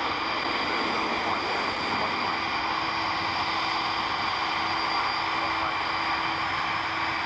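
Jet airliner engines running steadily: a continuous whine of several held tones over an even rushing noise.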